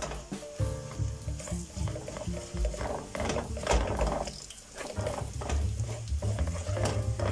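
A plastic spatula stirring and scraping onions and spices frying in bubbling oil in an aluminium pot, in repeated uneven strokes over a steady sizzle: the onion base for a vegetable pilau being sautéed.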